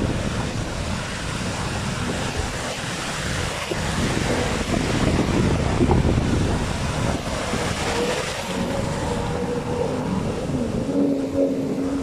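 Outboard engines of racing inflatable powerboats running out on the water, mixed with wind buffeting the microphone and surf. A steady engine tone comes through more clearly in the last few seconds.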